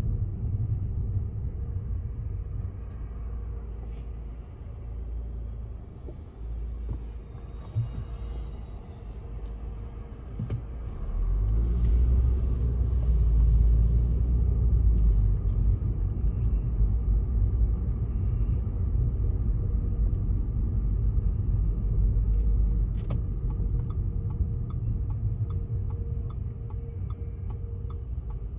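Low engine and road rumble inside a moving car's cabin, louder for several seconds about a third of the way in, then steady. Near the end a turn signal starts clicking in an even rhythm.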